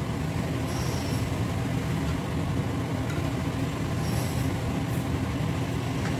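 A steady low rumble from the running kitchen stove area, with a few faint light scrapes of a metal ladle skimming oil from a pan.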